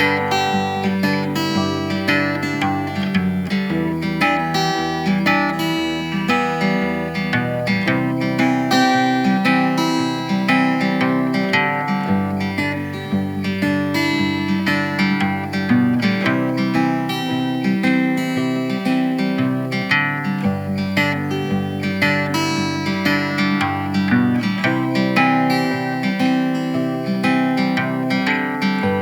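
Background music played on plucked acoustic guitar, with notes picked and strummed at an even, steady level.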